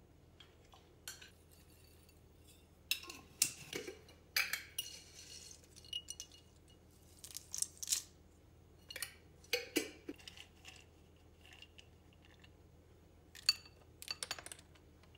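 Glass and ceramic dishes and cutlery clinking and knocking as they are handled, in irregular clusters of short clinks, some ringing briefly.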